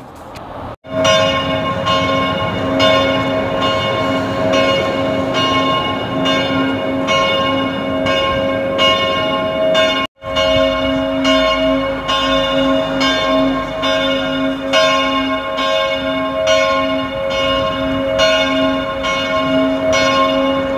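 Church tower bells ringing steadily, struck about twice a second, their tones ringing on between strokes. The sound breaks off for a moment about ten seconds in.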